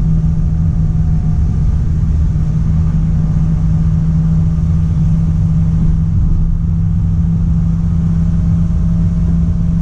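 Loaded heavy truck's diesel engine heard from inside the cab, running at a steady pitch with a low rumble while the retarder and engine brake hold the rig back on a long downhill.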